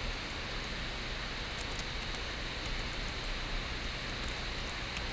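Steady hiss and low hum of a desk recording setup's background noise, with a few faint ticks.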